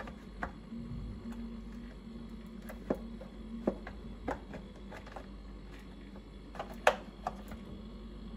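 Refrigerator compressor running with a steady low hum and a buzzing tone that sets in about a second in, with scattered light clicks and taps, the loudest near the end. The buzz is the fridge's nuisance noise, which the owner traces to the drain-water tray sitting on the compressor vibrating.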